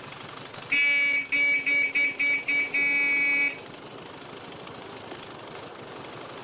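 Car horn honking in a rhythmic pattern: one long blast, five quick toots, then another long blast.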